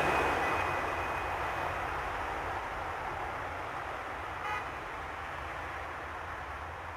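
A steady rushing noise over a deep hum, slowly fading away, with a brief higher tone about four and a half seconds in.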